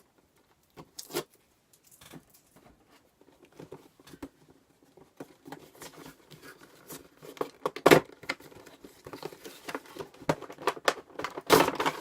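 Action figure packaging being handled and opened: plastic and cardboard crinkling and tearing in irregular rustles and clicks, loudest in a sharp crackle about eight seconds in and again near the end.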